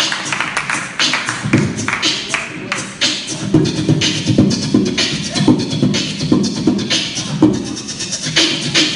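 Beatboxing into a handheld microphone over a stage PA: a run of mouth-made clicks, snares and low kick-drum thumps in a steady beat.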